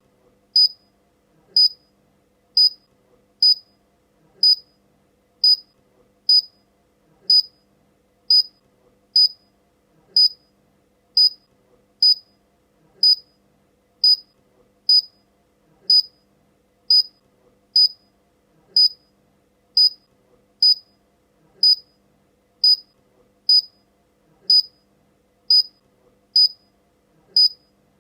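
Short, high-pitched electronic beeps, all at the same pitch, repeating about once a second without a break.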